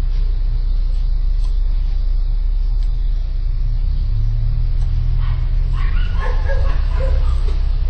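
A dog barking and yipping several times in the last few seconds, over a steady low rumble.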